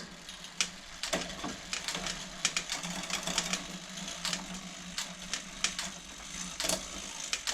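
Bicycle drivetrain turned by hand while the gears are shifted: the chain clicks and ticks over the cassette, with irregular shifter and ratchet clicks throughout.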